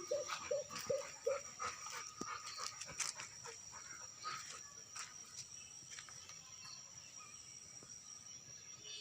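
Rottweiler puppy giving a quick run of short yips, about three a second, that stops about a second and a half in. Faint scattered clicks follow.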